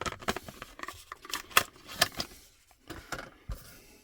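Plastic blister packaging being cut with a box cutter and pulled open: a run of irregular sharp clicks and crackles that thins out near the end.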